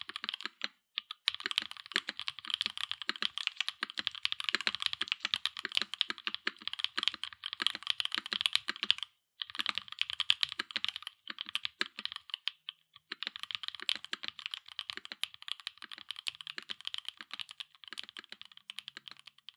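Fast typing on a gasket-mounted Bauer Lite mechanical keyboard with lubed Gateron EF Chedda linear switches, an aluminium plate, no foam and doubleshot PBT/ABS keycaps: a rapid, continuous stream of key clacks, with brief pauses near the start and about halfway through.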